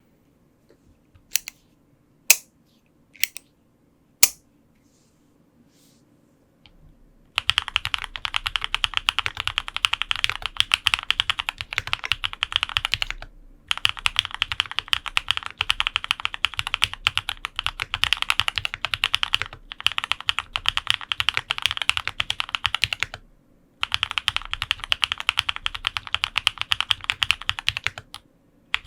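Mode65 65% custom mechanical keyboard with lubed linear switches (Cherry black housings, Kailh red stems), a POM plate and GMK keycaps: four separate keystrokes in the first few seconds, then fast continuous typing in long runs broken by a few short pauses.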